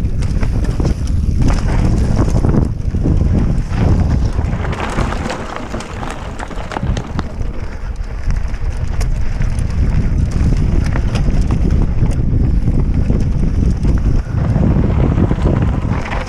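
Wind buffeting the microphone of a helmet camera on a mountain bike descending fast, with tyre noise and scattered rattling knocks as the bike runs over a rocky dirt trail.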